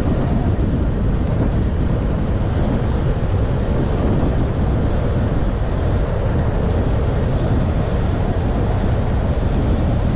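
Rushing wind hitting the microphone of a camera carried on a bicycle moving at speed, a steady loud rumble. With no wind to speak of, it comes from the riding speed.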